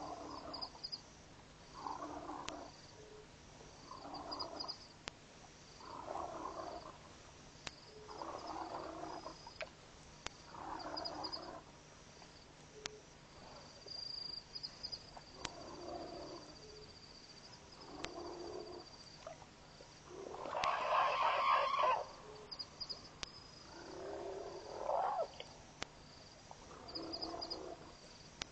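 An unseen animal grunting or growling over and over, one call about every two seconds, with one louder, harsher call about three quarters of the way through. The uploader suspects a bull elephant in musth.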